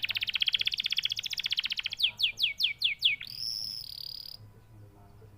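Domestic canary singing: a fast rolled trill, then about six quick notes sweeping downward in pitch, then a buzzy held note, after which the song stops.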